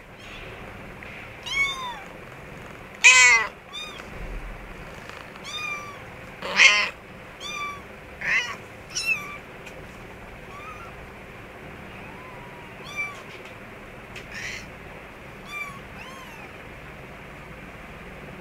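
Kittens mewing: repeated short, high-pitched mews, thick and loud for the first nine seconds or so, then sparser and fainter.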